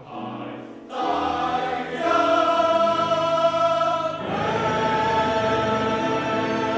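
A choir singing held chords, coming in loudly about a second in and moving to new chords twice.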